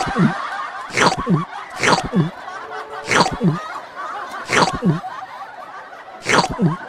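A comic sound effect repeated six times: each a sharp hit followed by a short falling tone, over a steady busy background layer.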